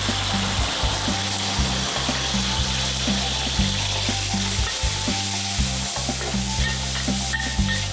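Chicken pieces frying in hot rice oil in a wok, a steady sizzle, with a metal wok spatula scraping and clicking against the pan as the meat is stirred.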